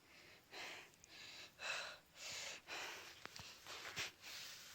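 A person breathing hard in quick, hissing breaths, about two a second, with a few faint clicks.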